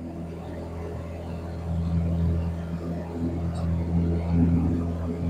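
Piper PA-28 Warrior's four-cylinder piston engine running at a steady low hum, heard from inside the cabin; it grows somewhat louder about two seconds in.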